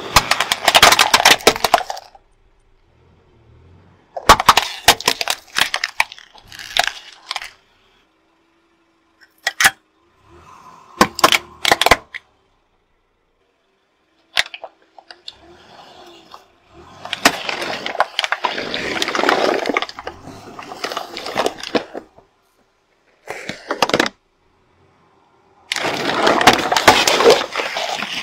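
A car tyre rolls over and crushes plastic toys and then plastic soda bottles. The sound comes as separate bursts of cracking and snapping with silent gaps between them. The later bursts are longer and denser as the bottles burst open.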